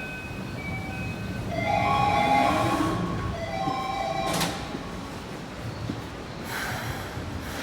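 Old platform screen door chimes, two different closing chimes sounding over each other in a jumble of short steady tones, with a sharp knock a little past halfway.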